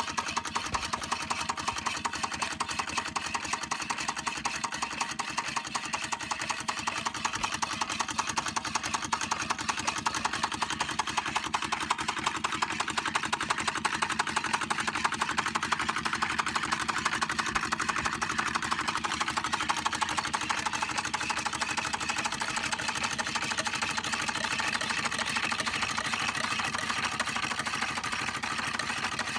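Märklin 4176/2 Stirling hot-air engine running steadily, a fast, even mechanical clatter from its piston, crank and spinning flywheel as it drives a belt-driven toy reaper.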